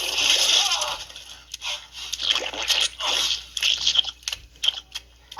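Water sounds: a steady rush for about a second, then a string of short, uneven splashes and squelches.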